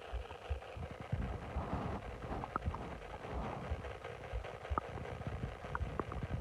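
Bloated stomach gurgling: irregular low rumbles with about four short, high squeaks.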